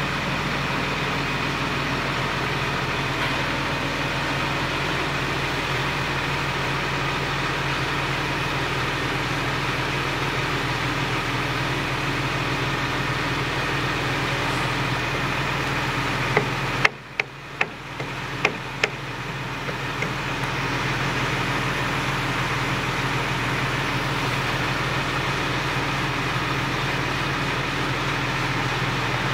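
Truck-mounted crane's diesel engine running steadily with an even hum. About two-thirds of the way through, the sound briefly dips and a handful of sharp clicks are heard.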